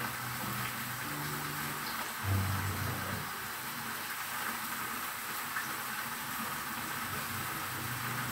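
Wok of stewed pork and cassava leaves simmering over a gas burner, a steady hiss. A low hum comes and goes, loudest briefly about two seconds in.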